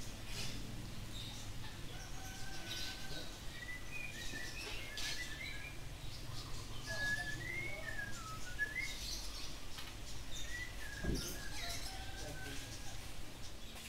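Small birds chirping, with short rising and falling chirps coming every second or so, over a low steady background rumble.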